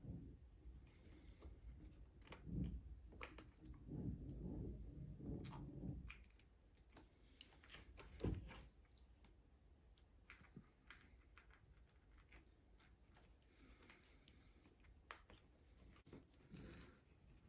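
Faint handling sounds of a laptop screen being swapped: scattered small clicks and taps, with low bumps and rustling during the first six seconds.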